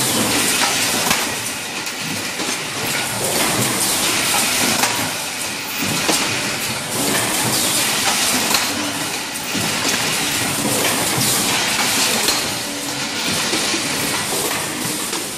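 Tin can production line machinery running, a dense metallic clatter of many rapid clicks and knocks that swells and eases every few seconds.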